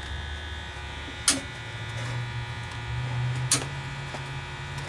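A steady electrical buzz with two sharp clicks, one about a second in and one past three seconds, from a hand working at the distributor of an air-cooled VW engine.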